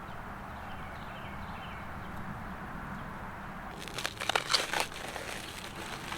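Plastic food packaging crinkling and crackling for about a second, roughly four seconds in, over a steady low background noise.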